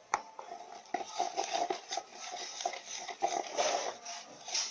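Slime mixture being stirred in a pot, with irregular sticky clicks and scrapes as the utensil works the lumpy mass.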